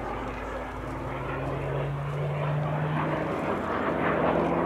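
Supermarine Spitfire Mk.Vb's Rolls-Royce Merlin V12 engine running in a display pass overhead. The engine note steps up in pitch about two seconds in and grows louder toward the end.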